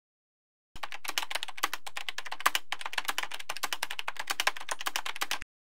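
Rapid typing on a computer keyboard: a dense run of key clicks that starts about a second in and stops abruptly shortly before the end.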